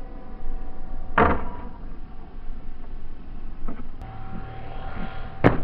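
Electric motor and propeller of a radio-controlled plane whining at a steady pitch, with two sharp impacts from the planes crashing, one about a second in and a louder one near the end.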